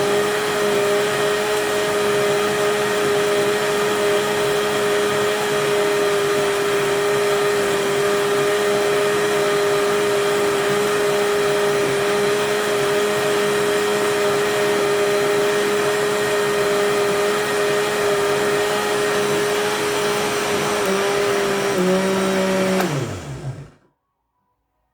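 Arno LSA blender motor running with a steady whine. Its pitch shifts slightly about 21 seconds in, then it is switched off near the end and spins down to a stop.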